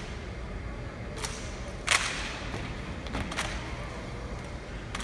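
A few sharp slaps of drill rifles being struck by hand during exhibition rifle drill, spaced unevenly, the loudest about two seconds in and ringing briefly in a large hall.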